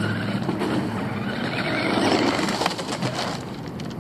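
RC buggy driving near the camera, its motor and tyres on the pavement, getting louder to about two seconds in and then fading.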